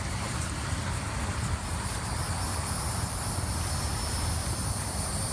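Outdoor wind buffeting the microphone, with insects buzzing steadily in a high thin tone underneath.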